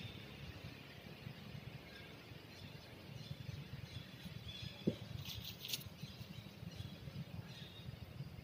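Quiet outdoor ambience: faint bird chirps over a low rumble, with a single short knock about five seconds in.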